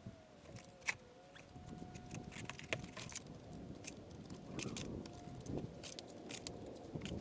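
A rapid, irregular patter of small clicks and taps from stonework on an arch ceiling, with a faint steady tone underneath.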